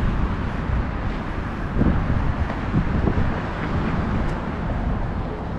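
Steady low rumble with wind buffeting the microphone, like a moving vehicle heard outdoors.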